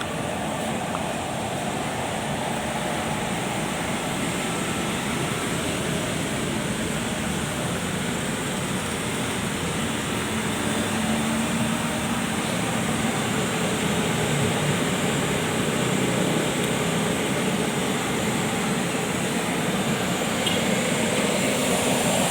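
Incinerator running: a steady rushing mechanical noise that grows a little louder about halfway through.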